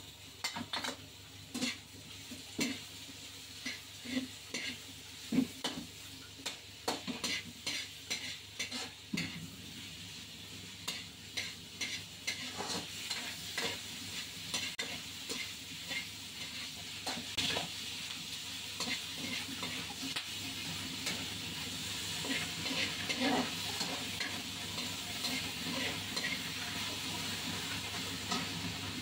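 Sliced chorizo frying with onions in oil in a wok, sizzling, while a metal ladle stirs and scrapes it, clicking and tapping against the pan many times. The sizzle grows steadily louder through the stretch.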